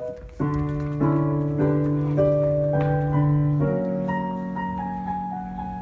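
Piano accompaniment of a musical-theatre song with no singing: a chord struck repeatedly about every half second, then, about four seconds in, a change to a lower held chord under a falling line of single notes.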